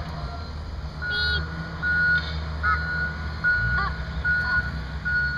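Backup alarm of a working construction truck beeping at an even pace, a little over one beep a second, over the steady rumble of its diesel engine: the truck is reversing.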